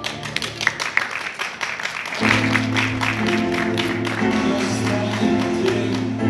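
Scattered clapping for about two seconds, then instrumental music comes in with steady held chords.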